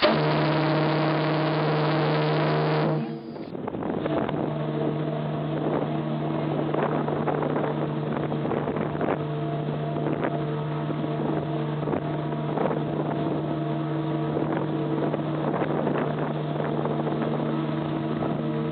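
A large ship's whistle blowing a long, steady, deep note. About three seconds in it breaks off at an edit, and a second long blast of a similar low whistle sounds through to the end, with light crackle over it.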